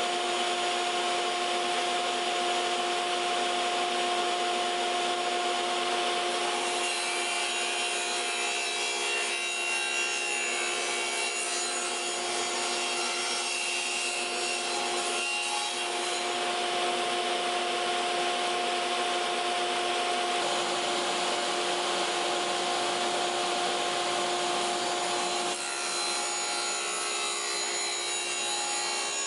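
Sliding table saw running with a steady whine, its blade rasping through thin wooden strips as they are pushed past it.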